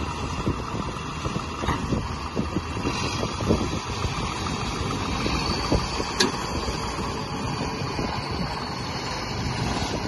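A John Deere 5410 tractor's diesel engine and the stuck combine harvester's engine running hard under load as the tractor pulls the combine out on a chain. A couple of short sharp clicks or knocks come through.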